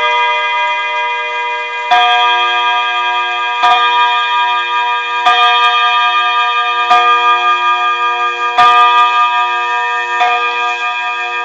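Pendulum mantel clock striking nine o'clock on its gong rods: a single ringing stroke about every 1.7 s, six strokes here, each ringing on into the next.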